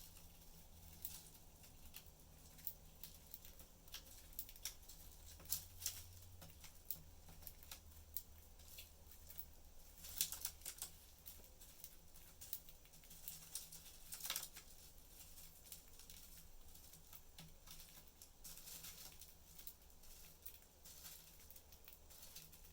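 Faint, irregular small clicks and scratches of pet budgies moving about and pecking in their cage, over a low steady hum.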